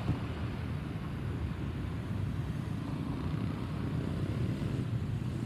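Steady low rumble of a jet airliner's engines in flight, an Airbus A320-214 with CFM56 turbofans.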